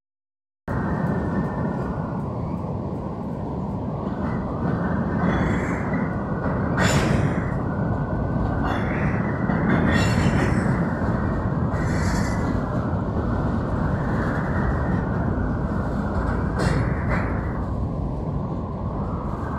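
Covered hopper cars of a freight train rolling past at close range: a steady rumble of wheels on rail, broken by brief high-pitched wheel squeals about half a dozen times. The sound cuts in after a short dropout at the start.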